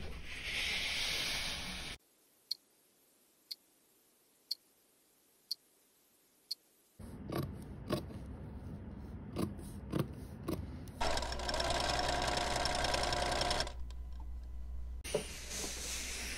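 A run of dressmaking sounds. It opens with a steam iron hissing, then five sharp ticks about a second apart over near silence. Tailor's shears snip through fabric, a sewing machine runs steadily for a few seconds, and a fainter hiss returns near the end.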